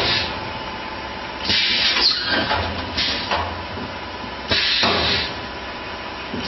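YQ-200 paper disc molding machine cycling: a hiss of air about every one and a half seconds as its press works, over a low steady hum and a thin steady tone.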